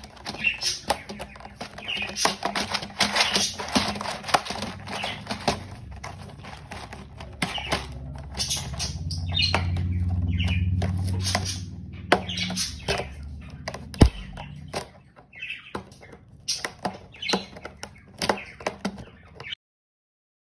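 A pet bird flapping its wings, with short chirps and scattered clicks and knocks, one sharp knock about two-thirds of the way through.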